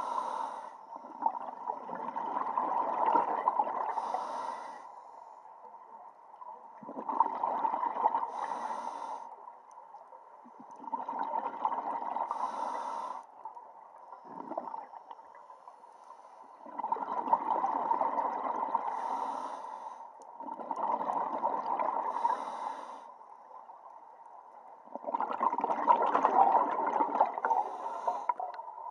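A scuba diver breathing through a regulator underwater: about six breaths, each a burst of gurgling exhaust bubbles lasting two to three seconds, with quieter pauses between them.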